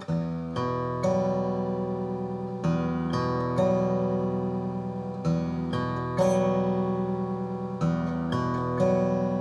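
Instrumental background music: plucked chords, each struck and left to ring, with a new chord about every second.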